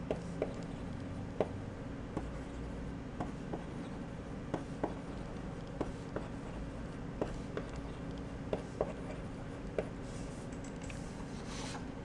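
HB graphite lead of a Staedtler Graphite 760 0.5 mm mechanical pencil writing on paper: soft scratching broken by small ticks, often in pairs, about every second, as the lead touches down for each word. Near the end comes a brief rustle of the paper.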